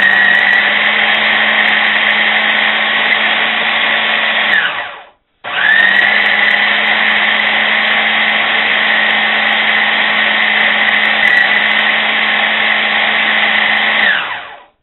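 General Electric food processor motor running as it chops roasted pork and onions into a paste, in two long runs: it winds down and stops about five seconds in, then spins up again with a rising whine and runs until it winds down near the end.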